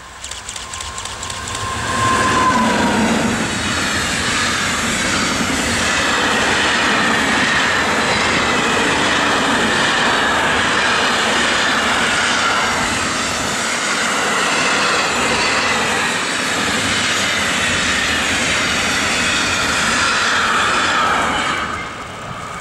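Electric-hauled container freight train passing close at speed. A single steady tone from the approaching locomotive drops in pitch as it goes by about two seconds in, then the wagons run past in a long steady rumble and rattle with a faint high wheel squeal, which falls away near the end as the last wagon passes.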